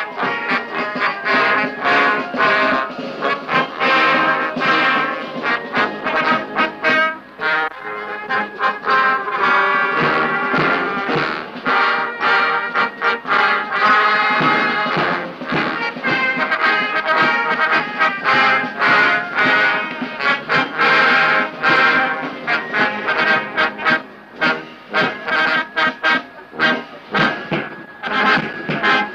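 Background music led by brass instruments, trombones and trumpets, playing a steady march-like tune.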